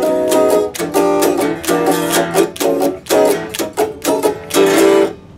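RockJam Stratocaster-style electric guitar strummed in a quick run of chords with a clean, thin tone, stopping just before the end.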